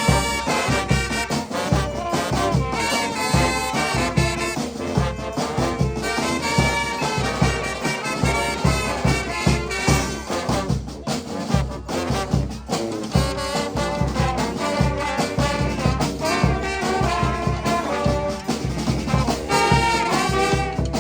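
A brass band playing live, with trumpets and trombones carrying an up-tempo tune over a steady beat.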